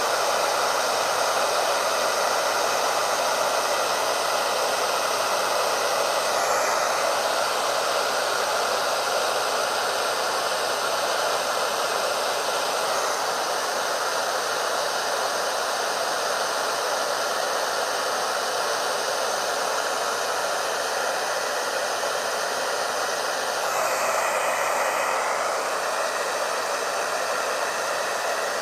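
Hair dryer running steadily on low with the heat off, blowing air over wet acrylic paint; its sound shifts slightly a few times as it is moved.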